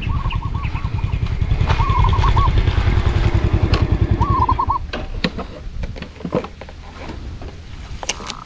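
A small motorcycle engine running with a fast, even beat that dies away about five seconds in. Three short warbling bird calls sound over it, followed by scattered light clicks.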